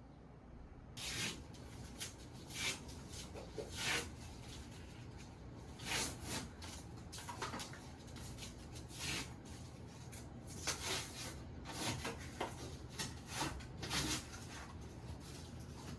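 A series of short rubbing or scraping strokes, about fifteen of them, coming at uneven intervals.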